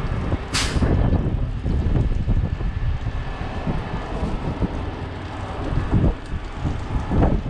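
Wind buffeting the microphone as a low, uneven rumble, with one short, sharp hiss about half a second in.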